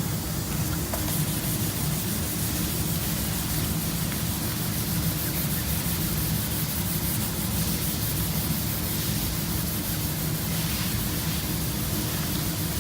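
Sanding on a plastic headlight lens, a steady rubbing hiss, over a constant low mechanical hum.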